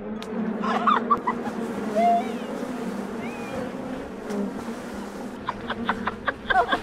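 Splashing in river water as a man jumps in and thrashes about, with a run of sharp splashes near the end, over a steady low hum.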